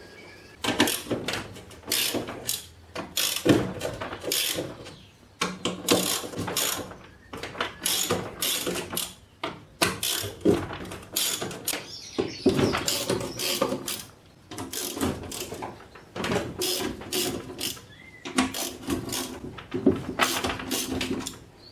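Socket ratchet clicking in repeated bursts as the bolts holding a mower deck's spindle bearing housing are undone, with knocks and scraping of metal and caked debris on the steel deck between bursts.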